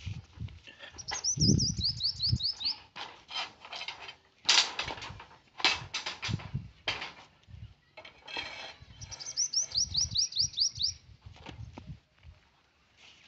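A bird sings two quick runs of high downward-slurred notes, one near the start and one after the middle. In between come sharp metallic clanks and knocks, the loudest about four and a half seconds in, from steel rebar and bending rods being handled, with dull low thuds throughout.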